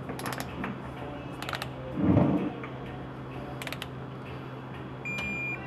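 Click-type torque wrench tightening caliper bracket bolts to 70 foot-pounds: three sharp clicks, the wrench signalling that set torque is reached, with a short dull thud about two seconds in and a brief high squeak near the end over a steady low hum.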